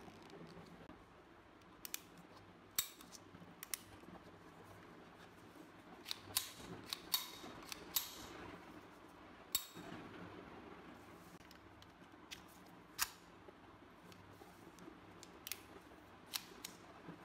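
Sharp metallic clicks and clacks from a Beretta Model 1934 pistol's steel parts as the pistol is handled and its slide worked during reassembly. The clicks come one at a time, with a quick cluster about six to eight seconds in.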